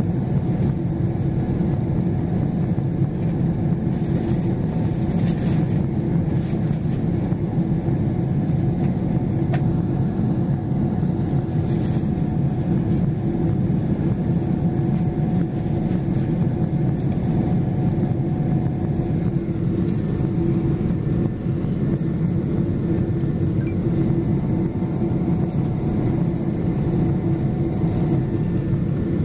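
Cabin noise inside a Boeing 777-200LR in climb after takeoff: the twin jet engines and rushing air make a steady low drone with a constant hum in it.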